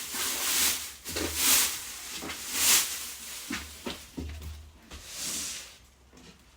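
Cloth wiping the surfaces of a new storage cabinet: several loud swishing rubs, with a few light knocks in between, dying away near the end.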